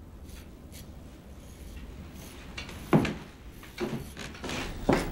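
Straight razor scraping through lathered stubble in a few short strokes in the second half, after a quiet stretch.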